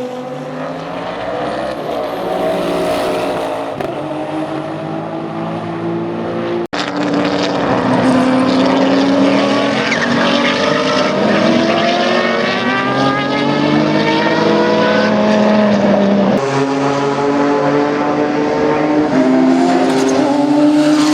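Porsche 962 race cars' turbocharged flat-six engines running hard at speed, the engine note climbing and falling as they accelerate and change gear. There is an abrupt cut with a momentary dropout about seven seconds in, and another change of pass at about sixteen seconds.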